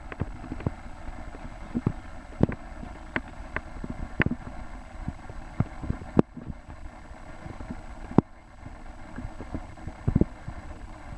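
Handheld camera handling noise: irregular clicks and knocks, a few a second, two sharp ones about six and eight seconds in, over a steady low outdoor rumble.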